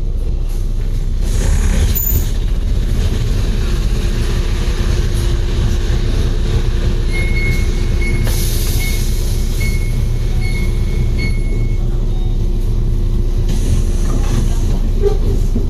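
Bus engine idling at a standstill: a steady low rumble with a steady hum over it. In the middle comes a string of about seven short, evenly spaced high beeps.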